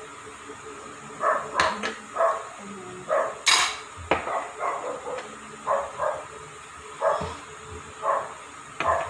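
A dog barking over and over in short barks, about once or twice a second, with a sharp click about three and a half seconds in.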